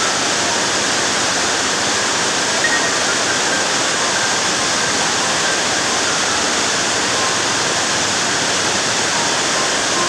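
Silver Cascade waterfall, swollen by heavy monsoon rain, gives a loud, steady rush of falling water.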